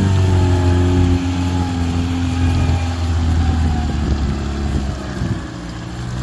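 Off-road 4x4's engine pulling steadily in low-range gear over bumpy ground, then easing off and dropping a little in level about five seconds in.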